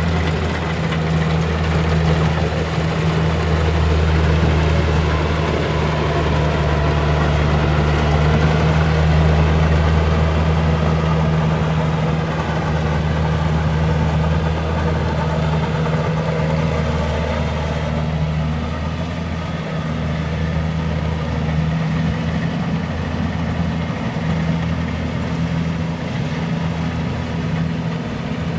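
Kubota rice harvester's diesel engine running steadily with a low drone and the clatter of its machinery; the higher-pitched machinery noise eases off about two-thirds of the way through.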